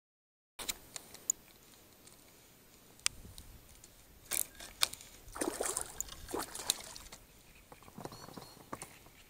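Handling noises in a small boat: a few sharp clicks and knocks, then rustling with water sloshing about halfway through and again near the end. It opens with a moment of dead silence.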